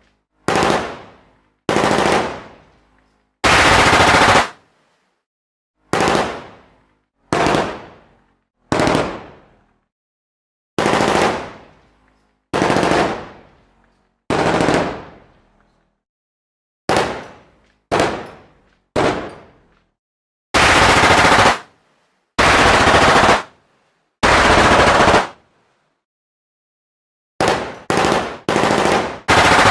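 Machine gun firing a string of short bursts, each under a second to about a second long, with silent gaps between them. Some bursts stop abruptly, while others die away in a fading echo.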